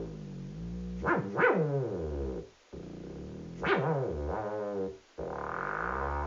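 Electronic sound generator putting out buzzy synthesized tones that swoop up and down in pitch, in three stretches broken by short gaps.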